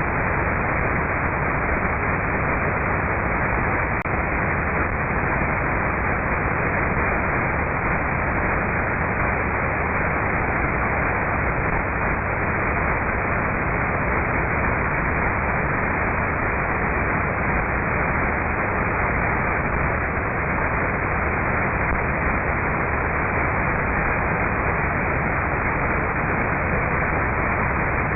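Shortwave radio receiver tuned to 6120 kHz giving steady hiss and static with no programme audio: only an unmodulated carrier of a test transmission is coming in. There is a single faint click about four seconds in.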